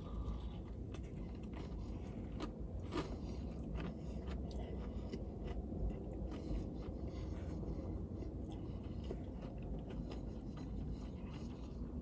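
A person chewing a bite of a fried chicken sandwich: faint crunching and mouth sounds, scattered irregularly over a low steady hum.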